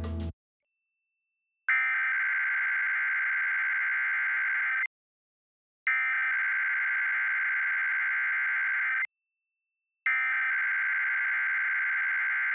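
Emergency Alert System SAME header: three identical bursts of a digital data tone, each about three seconds long with about a second of silence between them, the first starting about two seconds in. This data burst opens the station's Required Weekly Test.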